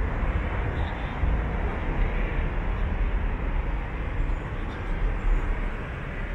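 Steady city street noise of passing traffic, with a strong low rumble underneath.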